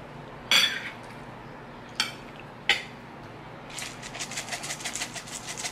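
A sharp knock and two short clicks from utensils and containers, then a fast, even run of rattling ticks for about two seconds near the end as grated cheese is shaken from a shaker over a plate of pasta.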